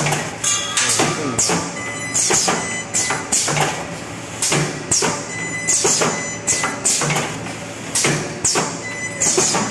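Multi-head gantry spot welding machine cycling: its row of pneumatic welding heads strikes the sheet in repeated sharp knocks, about two a second, each trailed by a short hiss.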